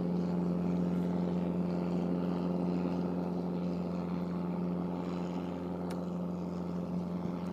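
A small boat's engine running at a steady speed, an even hum with no change in pitch.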